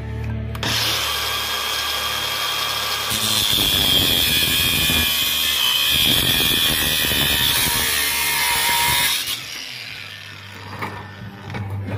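Craftsman brushless angle grinder spinning up about half a second in, then cutting into steel at a caster's mounting plate with a loud, high whine for about six seconds, falling away about nine seconds in.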